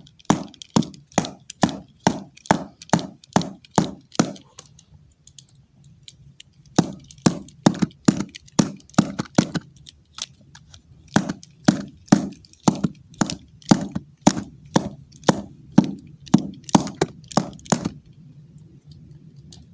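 Sharp taps or clicks on a hard object, repeating about three times a second in three runs with short pauses between.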